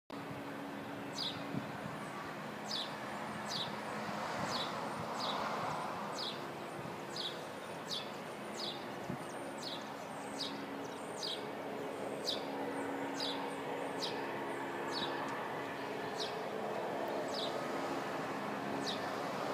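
A small bird giving a single short, high chirp over and over, about once a second, over steady distant city noise and a faint low hum.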